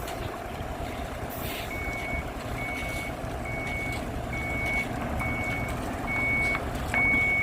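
A heavy construction vehicle's reversing alarm beeping, a single high tone about once a second, starting a couple of seconds in and growing louder near the end, over the steady rumble of its diesel engine.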